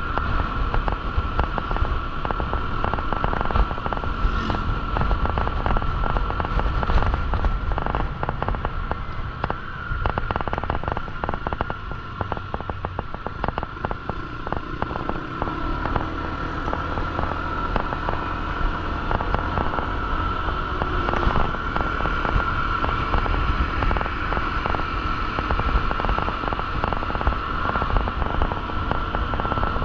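Motorcycle ride heard through the camera microphone: dense crackling wind buffeting over the steady rumble of the engine and road, with a steady high-pitched whine running underneath.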